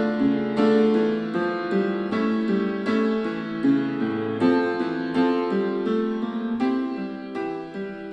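Piano music played back through Logitech Z313 2.1 computer speakers and picked up by a microphone, unequalized. The notes come in a steady flowing run.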